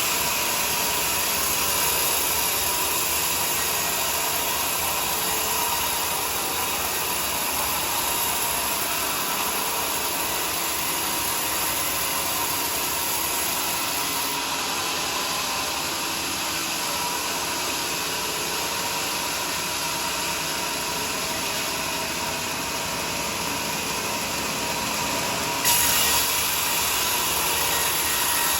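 Band sawmill running steadily while sawing a teak log into planks, a constant machine noise with a thin steady whine. The high hiss changes abruptly about halfway through and again near the end.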